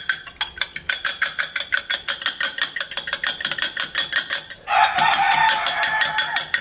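A metal fork beating eggs in a small ceramic bowl, clicking rapidly against the sides at about seven strokes a second. About two-thirds of the way in, a rooster crows loudly for about two seconds over the beating.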